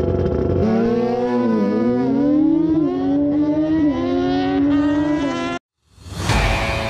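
Sport motorcycle launching off the line at a drag strip, its engine revving hard and climbing in pitch, dropping back at each quick upshift, three or four times. The sound cuts off abruptly about five and a half seconds in, and a sudden loud hit follows near the end.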